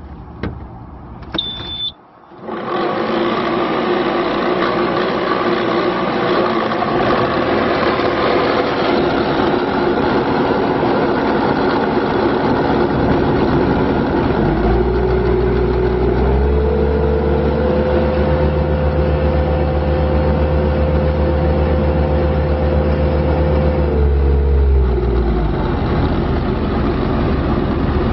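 Bobcat T300 skid steer's Kubota four-cylinder turbodiesel started with a short beep, catching about two seconds in and then running steadily. About halfway through it is throttled up in two steps, held at the higher speed for about ten seconds, then brought back down.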